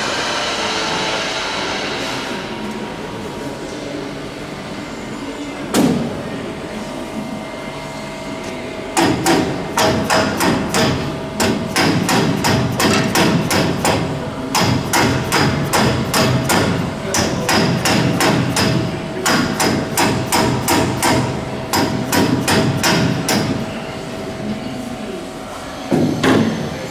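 Hammering: a run of sharp hammer blows, a few a second in bunches, lasting about fifteen seconds, with a single knock shortly before it and another near the end.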